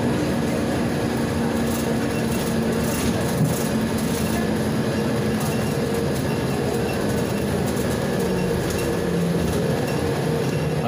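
Cabin noise of a Volgabus 5270G2 natural-gas city bus on the move: a steady low engine hum mixed with road and tyre noise.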